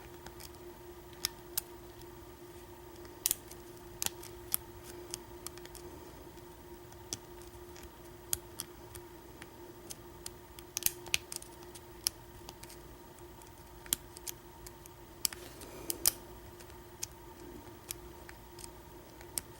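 Lock pick working the pin stack of an American 1100 padlock during single pin picking: scattered, irregular small metallic clicks and ticks, a few sharper than the rest, over a steady faint hum.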